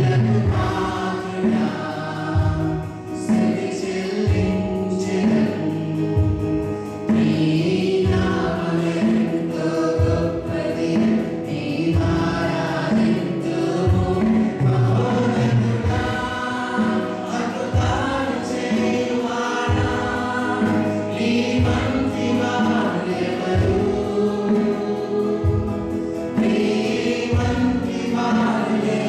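Church worship music: a group of voices singing a worship song together over steady instrumental accompaniment.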